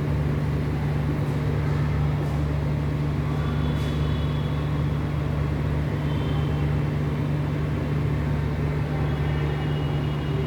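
A steady low mechanical hum that does not change, with a faint thin high tone now and then.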